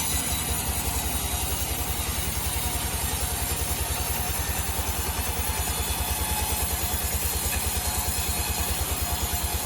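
Sawmill machinery running unloaded between cuts, a steady rapid low throb like an idling engine.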